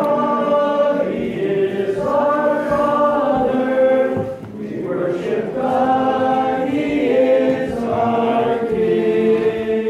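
Unaccompanied voices singing Byzantine-rite liturgical chant together, several pitches held at once in long drawn-out phrases with short breaks between them.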